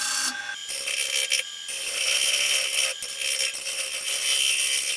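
Bowl gouge cutting the rim of a large, kiln-dried pecan bowl spinning on a wood lathe, truing it up. The cuts come in bursts with short breaks between them, over a steady tone from the running lathe.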